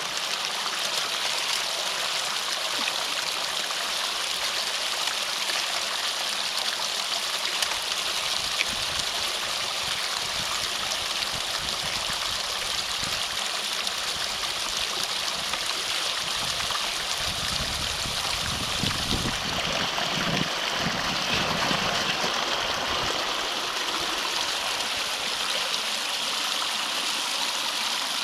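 Water rushing and gurgling steadily through a drainage ditch culvert that is being cleared of a beaver dam. A deeper, lower rumble joins in for several seconds past the middle.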